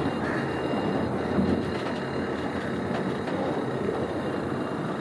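Steady hum of city traffic from the roads below, an even rumbling wash with no distinct events.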